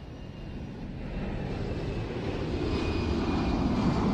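Jet airliner's engines at takeoff thrust as the plane rotates and lifts off, a steady rushing noise that grows louder throughout, with a faint high whine on top.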